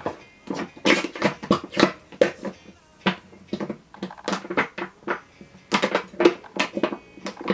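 One-litre plastic bottle of clear glue held upside down and glugging as it empties, a rapid run of short bubbly gulps as air forces its way back into the bottle.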